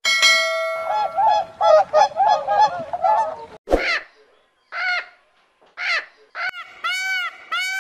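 Geese honking: a rapid run of chattering calls, then single honks about a second apart, then a steady series of rising-and-falling honks near the end.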